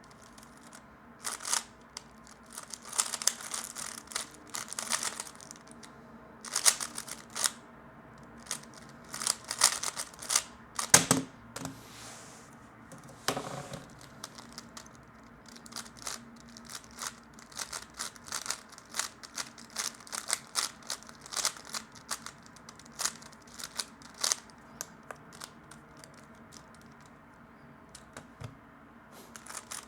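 3x3 speed cube being turned rapidly by hand: bursts of quick plastic clicking and clacking as the layers snap round, with short pauses between runs of turns.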